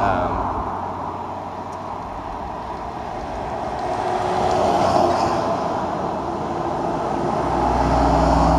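Road traffic: vehicles passing one after another, the tyre and road noise swelling and fading. A deeper engine rumble comes in near the end.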